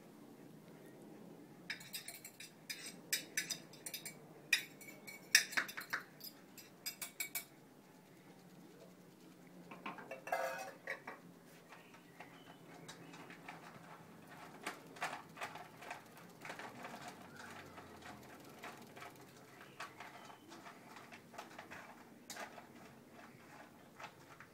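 Dry dog food being scooped and tipped into stainless-steel feeding bowls, clinking and rattling against the metal. A quick run of sharp clinks comes in the first seconds, a louder rattle about ten seconds in, and lighter clinking after that.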